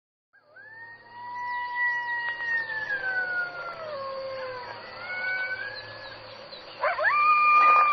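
Jackal howling: long wailing calls, the first sliding slowly downward over about four seconds with a fainter second voice overlapping, then a new wail rising sharply near the end and held high.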